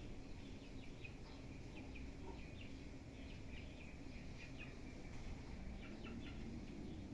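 Small birds chirping, many short high chirps in quick irregular runs, over faint steady background noise.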